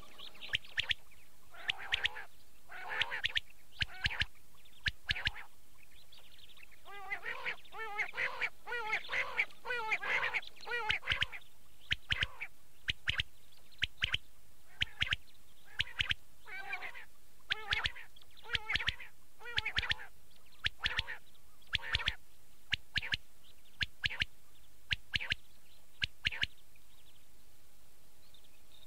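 Recorded quail (batair) calls: short, sharp calls in quick groups about once a second, with a denser run of overlapping calls from about seven to eleven seconds in. The calls stop a couple of seconds before the end. A faint steady hum runs underneath.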